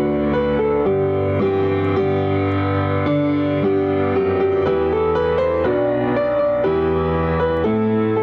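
Slow, gentle piano-style keyboard music, with sustained chords changing about once a second over a steady bass line.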